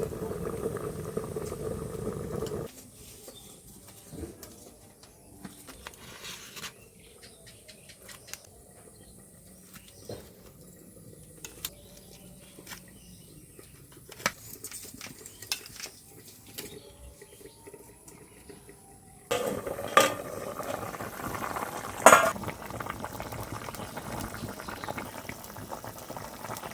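A pot of cauliflower and potato curry bubbling on the fire, with a metal spoon clinking and scraping against the pot. There are scattered light clicks through the middle, and a louder stretch near the end with two sharp knocks of utensil on pot.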